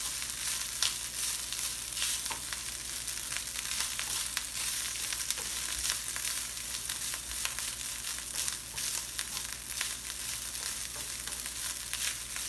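Cooked rice with cumin and cashews sizzling in a hot stainless steel frying pan as a wooden spatula stirs and tosses it, with frequent small clicks of the spatula against the pan over a steady hiss.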